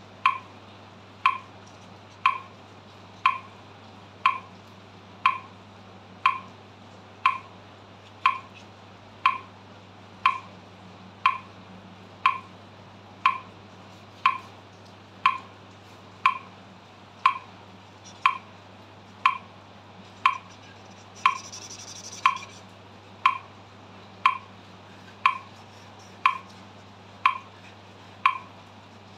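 Metronome ticking steadily at 60 beats per minute, one crisp tick a second.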